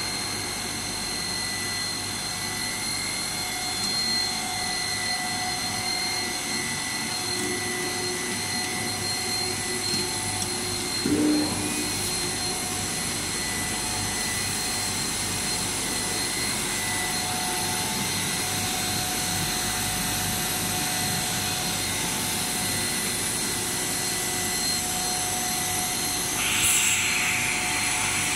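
Plastic pipe extruder line running: a steady mechanical hum with several constant whining tones from its motors and pumps. A brief louder sound comes about eleven seconds in, and a hiss sets in near the end and carries on.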